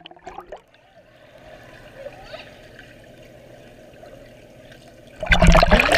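Muffled underwater sound of a swimming pool heard through a submerged action camera: a low, dull wash with faint gurgling. About five seconds in, loud splashing breaks in.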